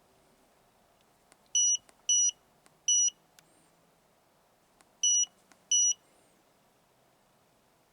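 Autel AL539 handheld scan tool beeping as its keypad buttons are pressed to move through menus: five short high-pitched beeps at irregular intervals, two close together about a second and a half in, one more at three seconds, and two near five and six seconds, with faint button clicks between.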